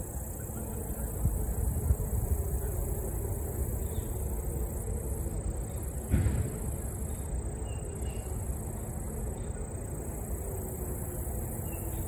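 Outdoor ambience: a steady, high-pitched chorus of crickets over a low rumble, with one brief knock about six seconds in.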